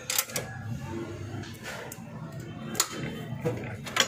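Sharp metallic clicks and clinks of an open-end spanner working the silencer mounting bolt on a Honda 125 motorcycle as it is tightened. There are a handful of them, irregularly spaced.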